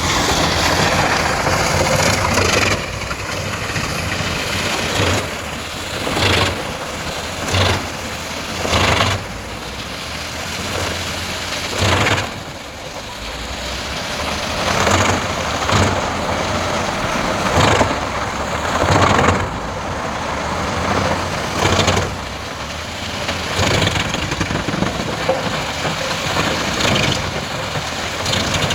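A large engine-driven wood chipper running steadily, with loud bursts of crunching and grinding every second or two as wood is fed through and chipped.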